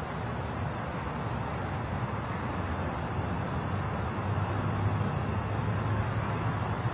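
Steady background noise with a low hum that grows a little stronger about halfway through, like distant traffic or an engine running somewhere off-scene.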